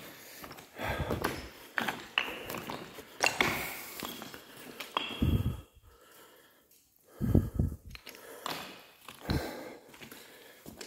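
Irregular scuffs and knocks of a person scrambling over rock, with heavy breathing.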